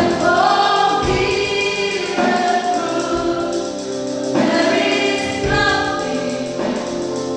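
Church choir singing a gospel song, with sung phrases held over an instrumental accompaniment.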